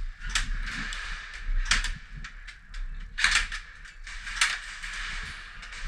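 Airsoft guns firing single shots: four sharp cracks roughly a second or more apart, with fainter clicks between.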